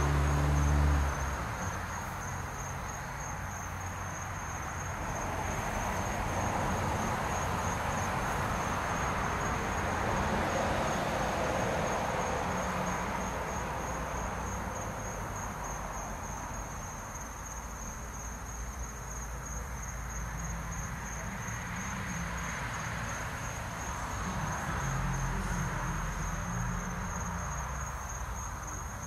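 Crickets chirping in a steady, rapid pulsing trill over a broad background hiss that swells and fades. A low engine sound cuts off about a second in.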